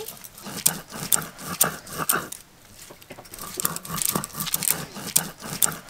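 Stone roller (nora) rubbed back and forth over a flat grinding stone (shil), crushing garlic and cauliflower leaves into a fine paste: a rhythmic gritty scraping at about two strokes a second, softer for a moment near the middle.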